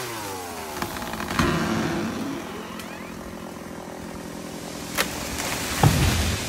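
Chainsaw engine coming off full throttle, its pitch falling over the first second or so, then idling steadily. A few sharp knocks sound over the idle, the loudest near the end.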